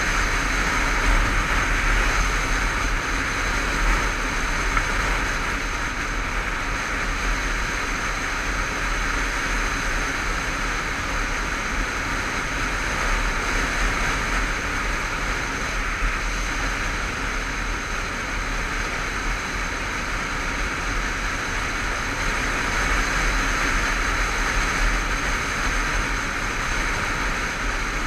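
Honda CBF500 motorcycle cruising at a steady speed. Wind rushes over the bike-mounted camera's microphone, with the engine and road noise running underneath.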